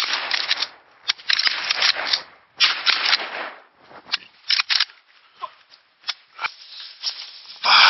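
Evergreen branches scraping and rustling against clothing and a shotgun as a person forces through dense brush: three long scratchy bursts in the first few seconds, then scattered sharp snaps and clicks of twigs.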